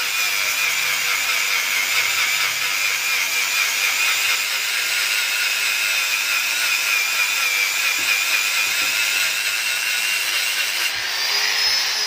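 Electric angle grinder grinding down the weld beads on a steel motorcycle muffler: a steady, loud grinding with a whine. Near the end the disc comes off the metal and its whine rises as it spins free.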